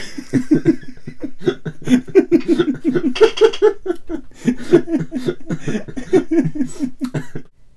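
A man laughing hard, a long run of quick laughs that stops near the end.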